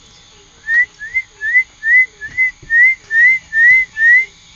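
A person whistling to call puppies: about nine short rising whistle notes, roughly two a second.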